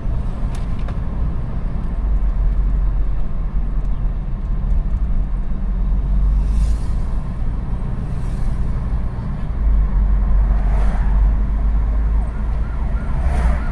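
Steady low rumble of a car's engine and tyres heard from inside the moving car, with a few brief swishes of passing traffic.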